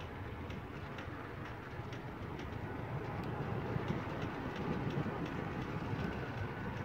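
Steady rumble of a vehicle driving along a road, with faint regular ticks or rattles about twice a second.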